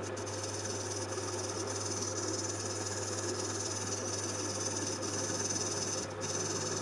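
Metal lathe running while a 1.5 mm parting-off blade cuts into a spinning aluminium part: a steady motor hum under an even high hiss from the cut, dipping briefly about six seconds in.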